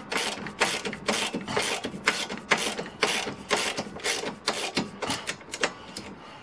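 Socket ratchet wrench clicking in quick, even strokes, about four a second, as a bolt holding the front protection bar is tightened by hand. The clicking stops a little before the end.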